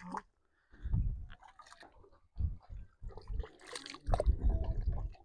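Wet mud squelching and sucking as hands dig into it and feet wade through it, in several irregular bursts, the longest near the end.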